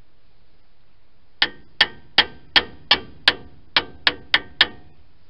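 Ten sharp metallic clicks, about three a second with a short pause after the sixth, from a hand tool being worked on a Ford truck's front brake caliper.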